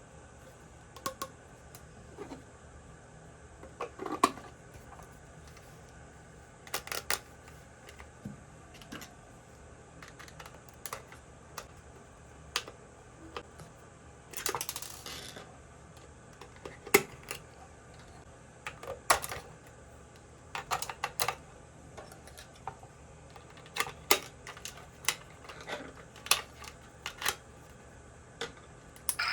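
Irregular clicks and taps of small hard plastic toy parts being handled and set down, with one brief scraping rustle about halfway through.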